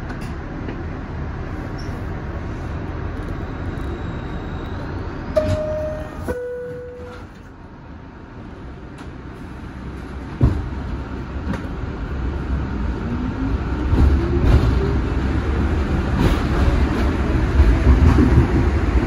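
R62A subway train standing with a steady running noise and two short descending tones about a third of the way in. About halfway through it starts off with a clunk, and its traction motors whine up in pitch as the train gathers speed and grows louder.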